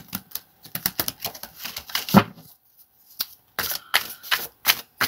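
A deck of cards being shuffled by hand: a dense flurry of card snaps and flicks, a short pause, then a quick run of evenly spaced snaps.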